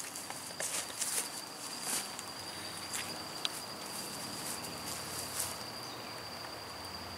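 Crickets singing, a steady high trill, with a few faint footsteps and rustles on the grass over the first five seconds or so.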